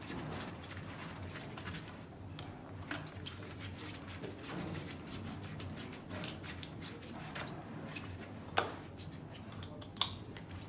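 Small metal clicks and scrapes of hands and tools working on an engine's cylinder head as a compression tester hose is unscrewed from one spark plug hole and threaded into the next. Two sharper clicks come near the end.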